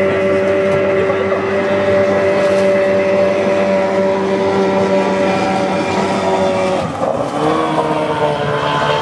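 Vintage racing powerboat engine running hard at high, steady revs; about seven seconds in its pitch drops.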